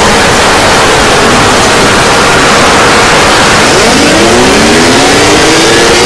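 Air-raid siren winding up about four seconds in, its pitch rising, over a loud steady hiss of static.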